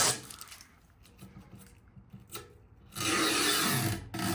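Clear protective plastic film being peeled off the black drawer trim of a steel tool cart: a dry ripping rasp about three seconds in, lasting about a second.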